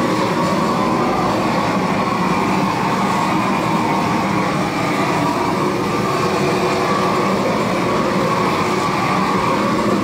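Long-wand propane torch running steadily, its flame held against the underside of wooden roof boards to char them.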